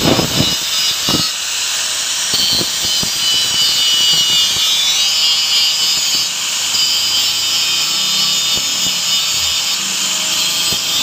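Angle grinder's cutting disc grinding into the steel magneto rotor of a Yamaha Mio, cutting back the ignition pulser bump: a steady high whine with a harsh rasp of abrasive on metal.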